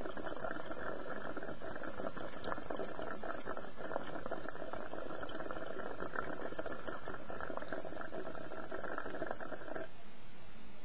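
Water bubbling steadily in a glass bong as a long hit of dab vapor is drawn through it. The bubbling cuts off suddenly about a second before the end.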